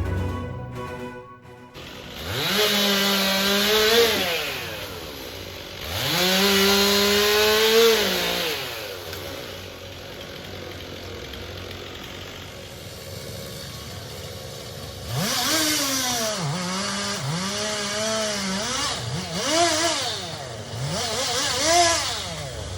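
Two-stroke chainsaw revving: twice it runs up to full throttle and holds there for about two seconds before dropping back, then it gives several short throttle blips near the end.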